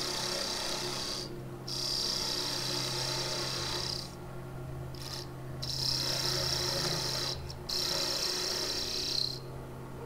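Parting tool cutting into a spinning spalted western maple blank on a Laguna wood lathe: a steady high hiss of the cut that breaks off briefly about five times as the tool is eased in and out, over the steady hum of the lathe motor.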